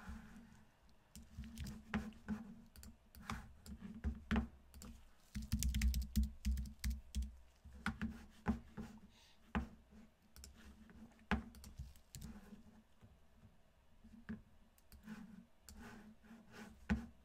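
Computer keyboard typing and mouse clicks, irregular and off and on, as a randomizer is set up on a computer.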